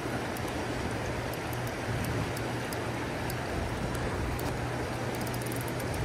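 Fast-flowing creek water rushing steadily over a shallow riffle, with a low steady hum underneath.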